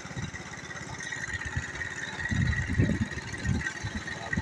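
A vehicle engine runs while moving, with a steady high tone over it. Irregular wind buffeting on the microphone builds from about two seconds in.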